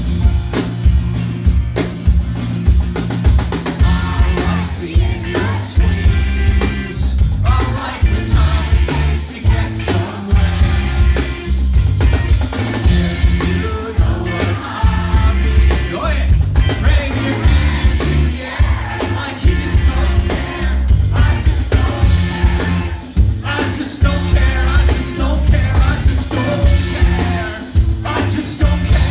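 Live rock band playing loudly, with a singer, drum kit and heavy bass, in a concert-hall performance.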